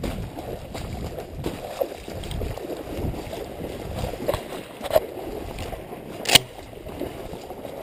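Wading through shallow marsh water and dry reeds: irregular sloshing and splashing with the swish of stems. One sharp knock about six seconds in.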